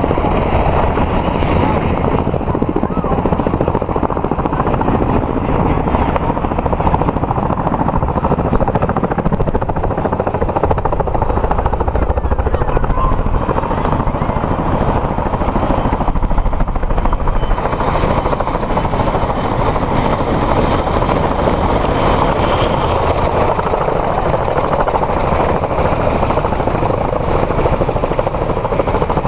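Two U.S. Marine Corps CH-46E Sea Knight tandem-rotor helicopters flying low and close, their twin turboshaft engines and rotors making a loud, steady, rapid chop; one comes down to hover low nearby.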